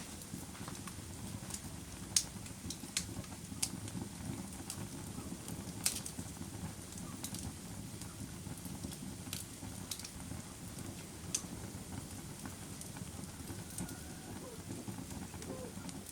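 Campfire burning: a steady low rush of flame with sharp crackles and pops at irregular intervals, a few of them louder snaps.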